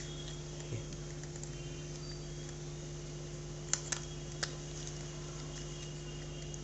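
A few small sharp clicks and taps, three close together about four seconds in, over a steady low hum: a laptop hard drive being handled and fitted into an optical-bay hard-drive caddy.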